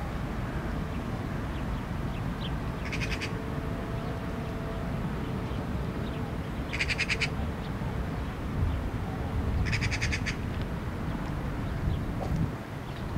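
A frog calling three times, each a short rattling croak of rapid pulses, a few seconds apart, over a steady low background rumble.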